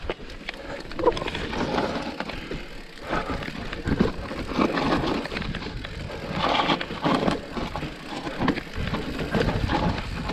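Mountain bike descending a very steep, loose dirt trail: tyres rolling and sliding over dirt and rock, with irregular rattles and knocks from the bike over bumps.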